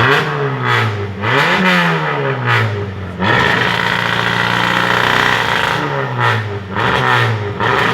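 TCR South America race car's 2.0-litre turbocharged four-cylinder engine revving. The revs drop, blip up briefly and fall again, then rise and are held high for a couple of seconds before falling away. Several sharp cracks come between the revs.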